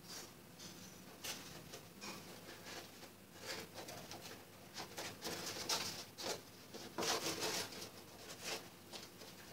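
Paper rustling and crinkling as a rolled copy-cover sheet is handled and stitched with needle and thread, in irregular scratchy strokes that grow thicker in the middle and again near the end.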